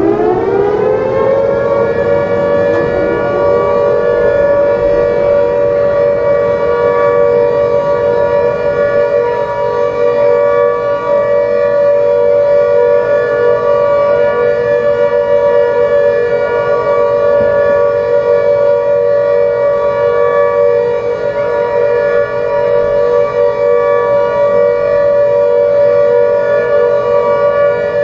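Civil-defence air-raid siren rising to pitch in the first second or so, then holding a steady two-note wail, sounding the warning of an imminent nuclear attack.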